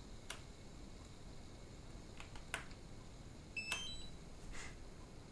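Faint clicks of the DJI Phantom 3 remote controller's buttons being pressed as it is restarted, then a quick run of short high beeps at several pitches about three and a half seconds in as it powers back up.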